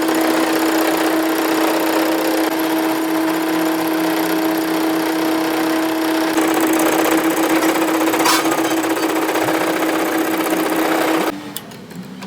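A workshop power tool running steadily with a hum and a strong hiss, cutting off suddenly about eleven seconds in.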